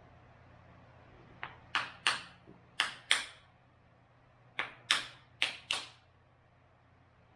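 About nine sharp knocks in two runs, mostly in quick pairs: a sashimi knife's wooden handle being struck to drive the heated tang home, seating the blade and setting it straight.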